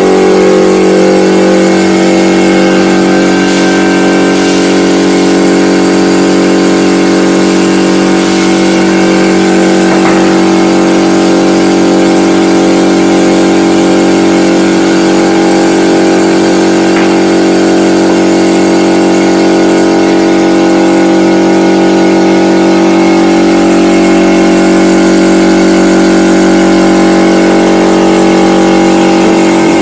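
Air compressor running with a loud, steady motor hum, used for blowing dust out of a desktop computer, with short hissing bursts of air about four and eight seconds in.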